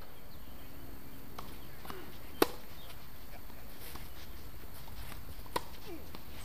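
Two sharp pops of a tennis ball struck by a racket, about three seconds apart, the first much louder, over a steady outdoor background hiss.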